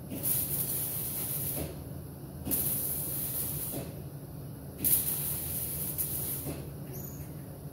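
Welder laying short stitch welds on a sheet-metal patch panel: three separate bursts of high hiss, each about a second and a half long with a gap of about a second between them, over a steady low hum.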